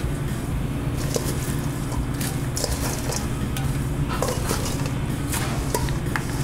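Metal tongs clicking and scraping against a stainless steel mixing bowl as hand-cut fries are tossed with salt, then the fries sliding out as the bowl is tipped onto plates. A steady low kitchen hum runs underneath.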